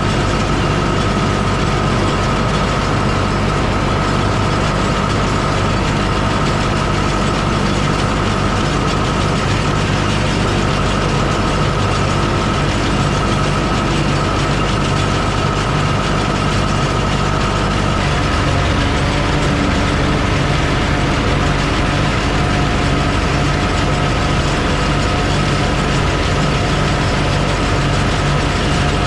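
John Deere tractor engine running steadily while pulling a John Deere 458 round baler, with the baler's machinery clattering along under the engine and a steady high whine over it. A low hum drops away about eighteen seconds in.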